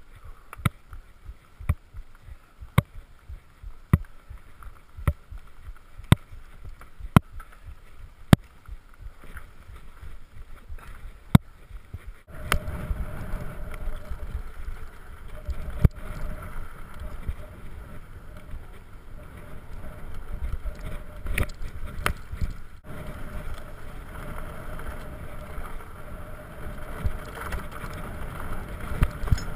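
Mountain bike rolling fast over a dirt trail, heard from a camera on the rider: tyre and trail rumble with wind on the microphone. For the first dozen seconds a sharp click comes about once a second; then the rumble turns suddenly louder and rougher.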